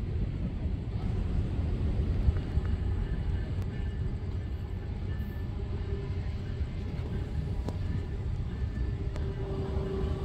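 Tri-Rail commuter train approaching from a distance: a low, steady rumble.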